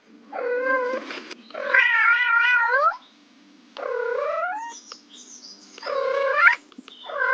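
Domestic cat meowing: five drawn-out meows, each rising and falling in pitch, the second one the longest.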